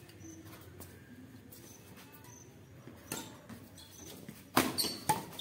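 Players' shoes squeaking on a concrete badminton court in short high chirps. Near the end come two sharp racket strikes on the shuttlecock, about half a second apart.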